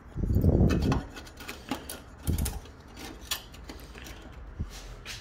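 Small sheet-metal repair pieces being handled against a car's body panel: a low rubbing thud in the first second and again about two seconds in, with scattered light metallic clicks and taps throughout.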